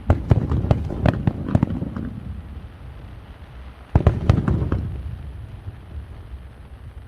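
Fireworks bursting in quick volleys of sharp bangs: a cluster in the first two seconds and another about four seconds in, each trailing off into a rumbling echo.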